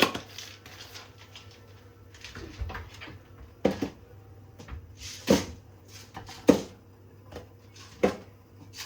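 Kitchen items knocking on a counter: about six sharp, separate knocks a second or so apart, over a low steady hum.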